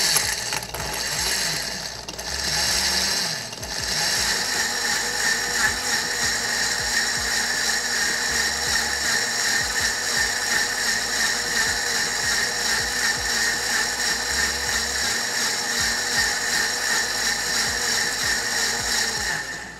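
KitchenAid Artisan K400 blender, with its 1.5 peak horsepower motor, running at speed as it blends whole green apples, spinach and ice into a smoothie. The sound is uneven for the first few seconds, dipping twice while the whole pieces are broken up. It then settles into a steady whir and cuts off at the very end.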